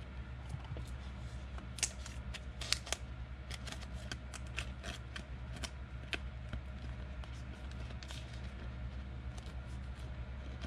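Glossy football trading cards being flicked through by hand, their edges sliding and snapping against one another in irregular light clicks, over a steady low hum.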